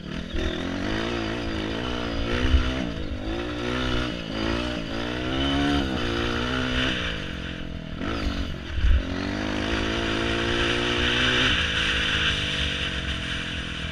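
Dirt bike engine running on a trail, its pitch climbing and dropping again and again as it is revved through the gears, with a couple of low thumps.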